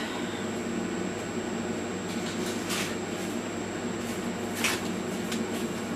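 Steady low electrical hum of a kitchen appliance, with three faint brief rustles about two, three and four and a half seconds in.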